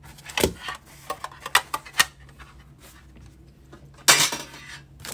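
Light metallic clinks and knocks of a metal trading-card tin and cards being handled on a desk, the sharpest about half a second in. A short rustling scrape comes a little after four seconds in.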